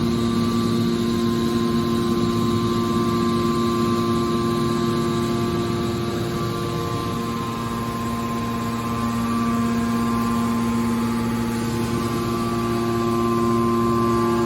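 Hydraulic power unit of a scrap car baler running with a steady mechanical hum, its main tone fading somewhat in the middle and coming back near the end.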